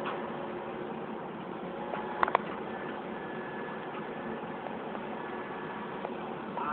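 Heavy machinery engine running steadily, with two sharp knocks a little over two seconds in.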